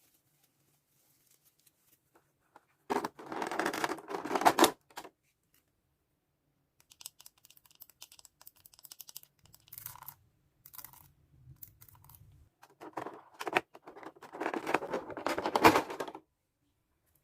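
Packaging being torn open by hand: two loud stretches of tearing and rustling, about three seconds in and again near the end, with fainter scratching and rustling between.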